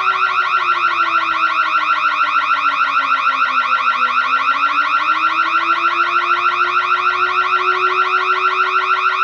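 Electronic burglar alarm sounding: a shrill, rapid warble of about eight pulses a second, over a lower tone that slowly dips and then rises again. It cuts off suddenly at the very end.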